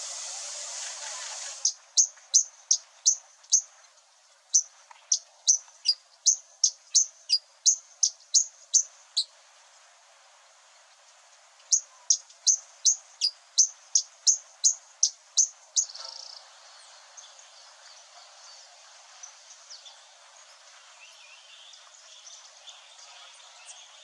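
Perched hummingbird singing a monotonous song of sharp, high single chips, about three a second, in two long bouts with a pause between. A steady hiss cuts off just before the first chip, and after the song only faint scattered chirps remain over a low background.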